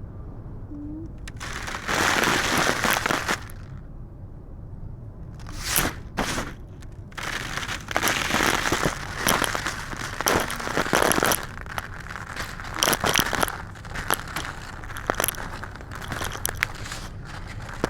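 Crumbly black concrete crunching and crumbling as it is crushed. A short burst comes about two seconds in, a few brief crunches follow, and then the crunching runs on almost without break, full of small cracks, through the second half.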